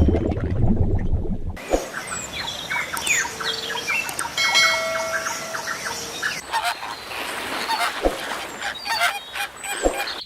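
Geese honking and calling repeatedly, with short chirps among the calls and one longer held honk near the middle; this starts after an abrupt change about a second and a half in, before which a dense low sound plays.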